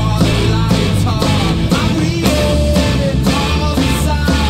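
Background rock music with a steady beat, guitar and singing.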